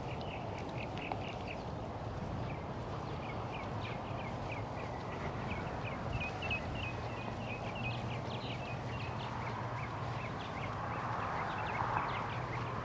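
Small birds chirping outdoors: many short, high calls repeated several times a second, over a steady low hum.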